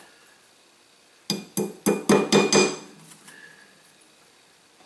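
About six quick metal-on-metal taps, roughly four a second, with a ringing edge: a pin punch tapped with a small hammer to seat the extractor retaining pin in a single-barrel shotgun's barrel.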